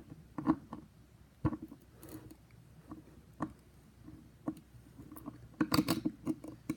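Scattered clicks and light scrapes of a skate tool and screwdriver working a skateboard truck's bolt and nut loose, with a quick run of clicks near the end.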